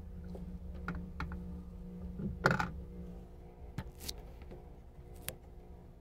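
A handful of light clicks and taps over a steady low hum, the loudest cluster about two and a half seconds in.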